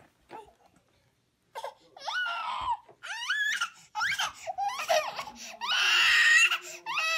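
Baby girls' high-pitched squeals and whines starting about one and a half seconds in, their pitch gliding up and down. A louder squealing laugh comes near the end.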